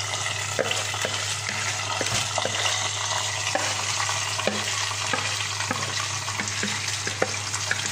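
Rice and browned vermicelli sizzling in hot oil in a metal saucepan as a wooden spoon stirs them, with irregular light knocks of the spoon against the pot. The rice is being toasted in the oil before the water goes in.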